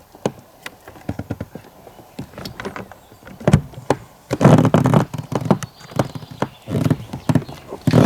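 Kamisu T 9.9 PRO two-stroke outboard motor being pull-started with the choke on: uneven knocks and several short bursts of firing, the strongest in the second half.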